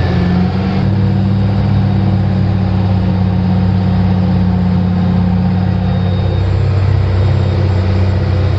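Diesel engine of a ten-wheeler truck running at a steady speed, a low even drone.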